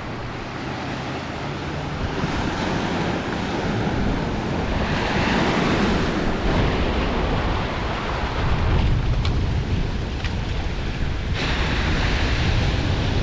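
Ocean waves washing against shoreline rocks, swelling louder around the middle, with wind rumbling on the microphone in the latter part.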